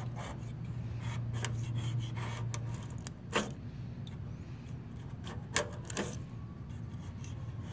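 Razor-blade scraper scraping and clicking against a car's metal body panel as loose base-coat paint peels away, with two louder clicks in the second half. A steady low hum runs underneath.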